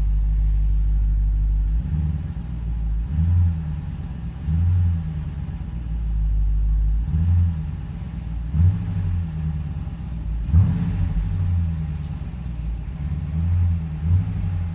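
Dodge Durango SRT 392's 6.4-litre HEMI V8 idling in park, heard from inside the cabin. Its low note swells briefly several times, every second or two.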